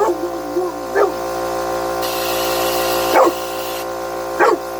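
Boxer dogs barking in three short, sharp barks over the steady hum of a running air compressor, with a burst of air hissing from the blow nozzle near the middle.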